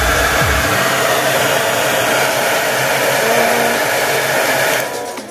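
Handheld electric hair dryer blowing steadily, a loud even rush of air and motor that cuts off suddenly near the end.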